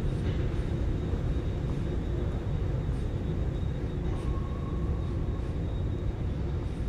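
Steady low rumble of city ambience at night, the kind of traffic and rail background heard around a busy station, with a few faint short clicks and a faint brief tone about four seconds in.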